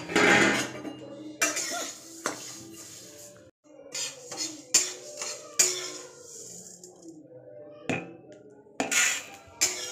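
Metal spatula scraping and clinking against a steel kadhai as it stirs and scoops dry coriander, fennel and cumin seeds, with the seeds rattling in the pan. The scrapes come as repeated irregular strokes.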